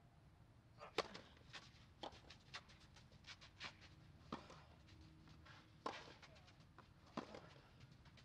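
Tennis ball struck by rackets in a rally: a sharp racket strike on the serve about a second in, the loudest, then further hits and ball bounces at uneven gaps of about half a second to a second and a half.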